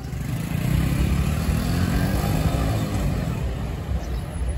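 A motorcycle engine passing close by in street traffic, its pitch rising and then falling through the middle, over a steady low traffic rumble.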